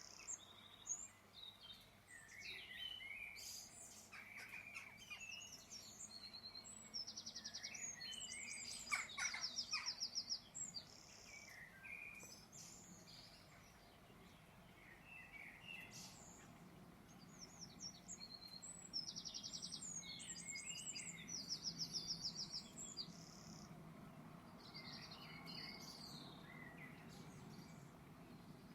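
Several small birds chirping and singing, with rapid high trills that come again and again between shorter chirps. A few faint clicks about nine seconds in.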